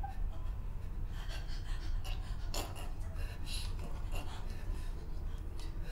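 A woman breathing hard in excitement, with a few short breathy gasps, the clearest about two and a half and three and a half seconds in.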